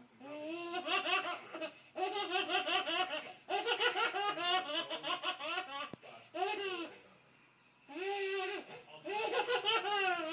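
A toddler laughing very hard, in repeated fits of rapid high-pitched ha-ha-ha pulses with short breaths between bouts. There is a brief pause about seven seconds in, then the laughing starts again.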